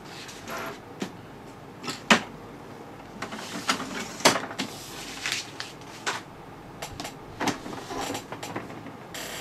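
Plastic clicks and knocks as the ink cartridge access door of an HP Officejet Pro 8100 inkjet printer is opened and handled. The sharpest knocks come about two and four seconds in, with lighter clicks between.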